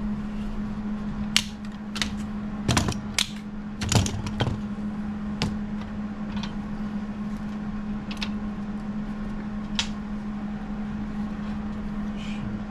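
Workshop sound: a steady low hum with about ten sharp metallic clicks and knocks on top of it. The knocks are thickest in the first few seconds and come more sparsely after that.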